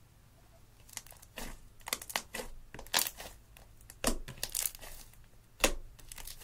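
Hands pressing and squeezing thick black slime, giving an irregular run of sticky crackles and pops that starts about a second in, with the loudest pops near the middle and end.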